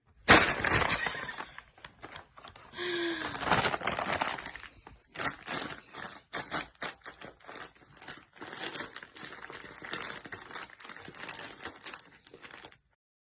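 Rustling and crinkling, like something being handled or crumpled, with many short clicks and a loud burst at the start. A short pitched call falls in pitch about three seconds in.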